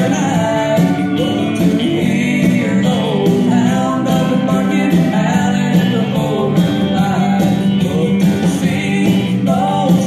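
Recorded song with a singing voice over instrumental backing, played as the music for a line dance.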